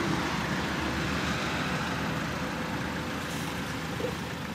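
Filling-station tyre-inflator air compressor running steadily, with a rushing noise that slowly gets quieter.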